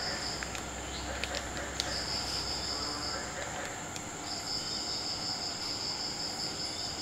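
Insects trilling: a high, steady trill that stops and starts in long stretches of one to three seconds, over a thinner, higher steady tone and a few faint clicks.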